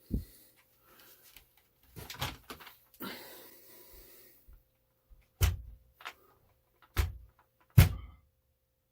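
A series of separate thumps and knocks, about seven, with a rustling stretch about three seconds in; the three sharpest come in the second half, the loudest near the end.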